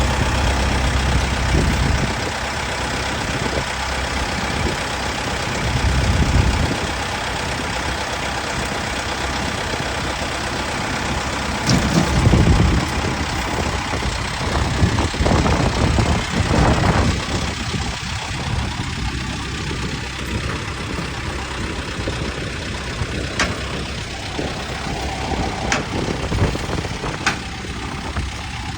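An engine running steadily under a dense rushing noise, with a few sharp clicks.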